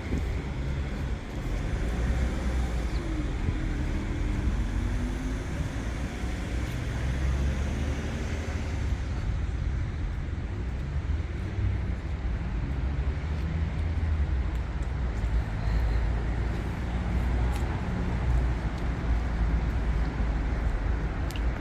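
Road traffic on a city street: a steady low rumble of passing cars, with a few faint rising and falling engine tones a few seconds in.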